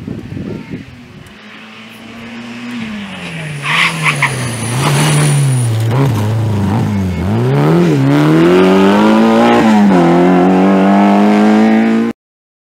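Rally car engine coming in hard, revs falling as it brakes and downshifts for a tight bend, with a brief tyre squeal, then accelerating out through the gears with revs climbing in steps. The sound cuts off suddenly near the end.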